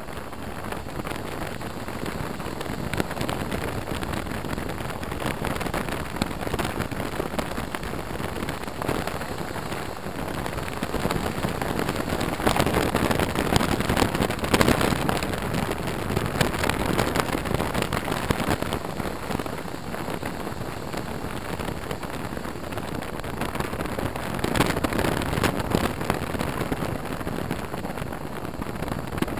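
Wind rushing and buffeting over a helmet-mounted camera's microphone while riding a motorcycle at speed, louder around the middle.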